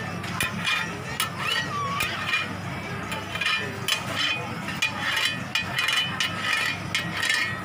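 A metal blade scraping and tapping on a flat metal griddle, making repeated sharp clinks, over the chatter of a busy market crowd.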